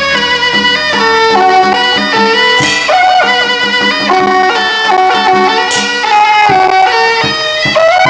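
Loud traditional temple-procession music: a reedy wind instrument plays a stepping melody over a steady drum beat, with cymbal crashes twice.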